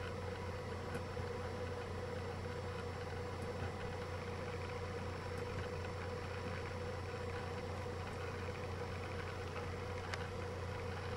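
A steady low electrical hum with a fainter steady tone above it, unchanging throughout, with a couple of faint clicks.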